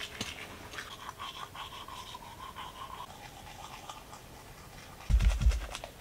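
Teeth being brushed with a toothbrush: quick, fine scrubbing strokes. Near the end come a couple of heavy low thumps, louder than the brushing.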